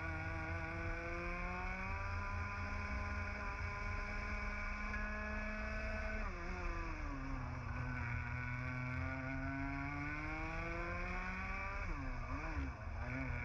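A TAG two-stroke kart engine heard from the kart itself, revs climbing steadily, then falling sharply about six seconds in as the driver lifts off for a corner, and climbing slowly again. Near the end the revs briefly dip and waver, then pick up again.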